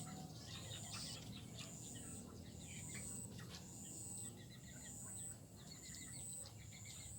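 Many small birds chirping and twittering at once, a swarming flock of swiftlets and sparrows. A thin high note pulses about once a second behind them.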